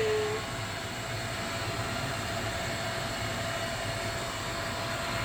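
Roomba robot vacuum running with a steady motor whir and a low hum.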